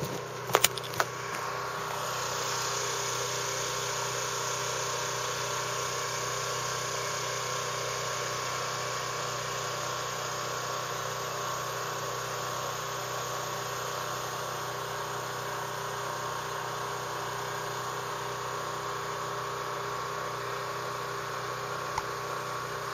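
A small engine running steadily, after a few sharp clicks about half a second to a second in.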